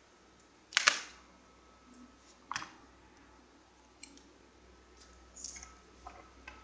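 A few short sharp clicks and knocks: a loud double click about a second in, another near the middle, and fainter ones toward the end.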